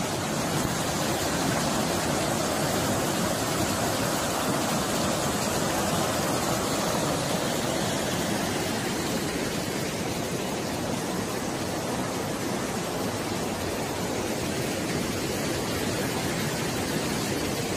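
River in flood rushing over and around rocks: a steady, even rush of water.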